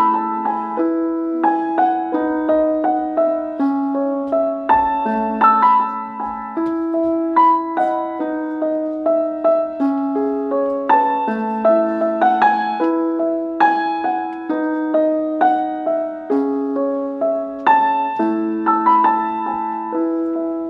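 Background piano music: a melody of struck notes over a lower line of longer held notes.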